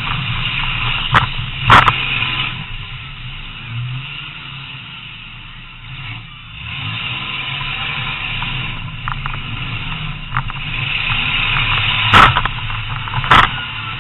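Demolition derby car's engine running, heard from inside the stripped cabin, easing off a few seconds in and picking up again. Four sharp loud bangs of impacts and jolts cut through it, two about a second and a half in and two near the end.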